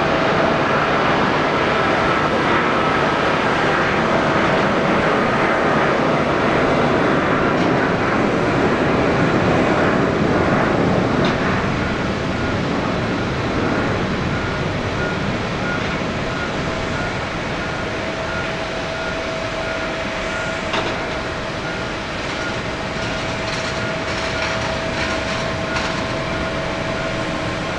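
Cessna 680 Citation's twin turbofan engines at climb power after takeoff: a steady jet roar with a thin steady whine, easing off a little about twelve seconds in as the jet climbs away.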